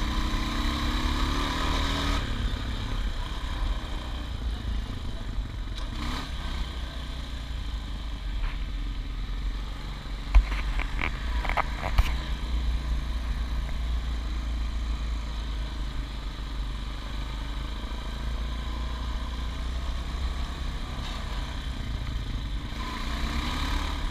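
Honda Foreman 450 ATV's single-cylinder four-stroke engine running while riding a dirt trail. It revs up at the start, again about six seconds in and near the end, with a few sharp knocks around ten to twelve seconds in.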